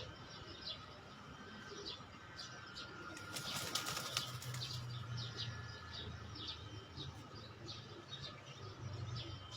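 Bird wings flapping, loudest in a noisy burst about three to four and a half seconds in, over repeated short high chirps from small birds.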